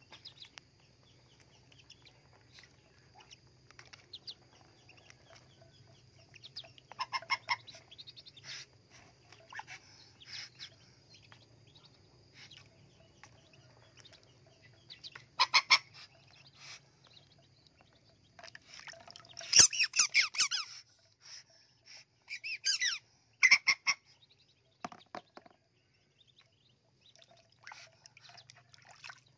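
Ducklings peeping in scattered bursts of shrill calls, the busiest and loudest burst about two-thirds of the way through.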